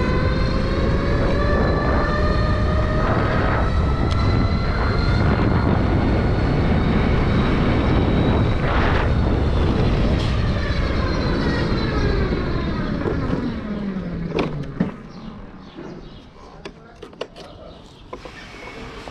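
Suzuki e-Lets electric scooter's motor whining under way, over a steady low rush. The whine climbs in pitch over the first few seconds and holds, then falls away as the scooter slows, about fourteen seconds in; after that it is quieter, with a few light clicks and knocks.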